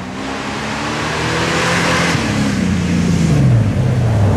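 Off-road Jeep's engine revving as it comes closer along a muddy track, growing louder; the pitch holds steady, then drops and climbs again twice with the throttle.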